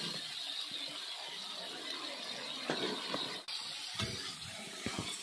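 Masala being stirred and fried in a kadhai: a spatula scraping rough strokes across the pan, with a few sharp knocks of utensil on metal about three and five seconds in.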